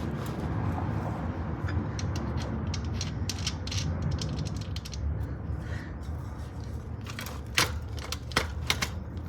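Bicycle rear wheel and chain being worked into the frame's dropouts: a run of small metallic clicks and rattles, with a few sharper clicks near the end.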